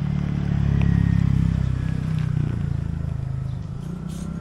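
A motor vehicle's engine running, getting louder about a second in and then slowly fading away.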